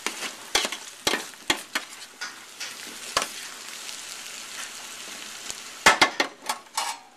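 Hash browns of potatoes, peppers and onions sizzling as they fry, with a steady hiss. A utensil scrapes and clacks against the pan as they are stirred, with a quick run of clacks near the end.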